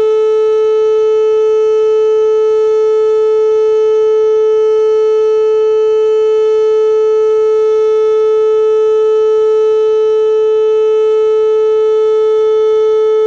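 Whelen WPS-2810 electronic outdoor warning siren sounding a loud, steady tone that holds one pitch without wailing up or down: the tornado siren's test signal.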